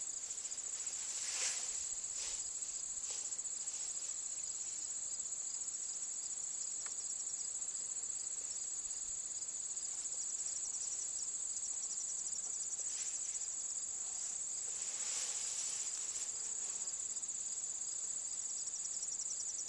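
Steady, high-pitched chorus of meadow insects, with a faster pulsing trill joining in twice, about ten seconds in and near the end.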